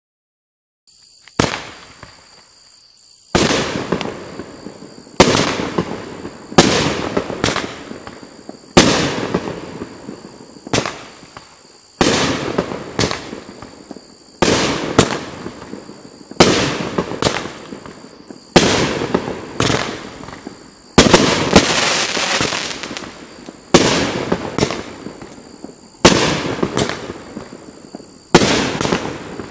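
Legend Fireworks LC5011 Raging Bull, an 18-shot consumer fireworks cake, firing flaming comet balls: a string of sharp shots about one to two seconds apart, starting about a second and a half in, each trailed by a fading hiss.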